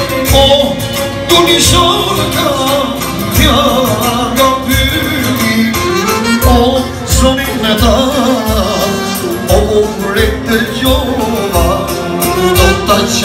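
Live Albanian-style music: a man singing into a microphone over an electronic keyboard with a steady beat of low thumps, with a clarinet playing.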